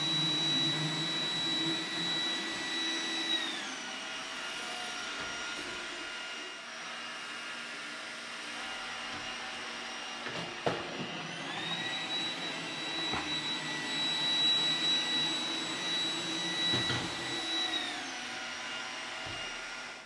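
iRobot Roomba 980 robot vacuum running with a steady motor whine. Its pitch drops about three and a half seconds in, rises again around eleven seconds, and drops once more near the end, as its automatic carpet boost raises suction on carpet and lowers it on hard tile.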